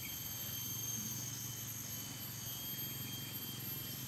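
Steady chorus of insects trilling at several high pitches at once, over a low steady hum.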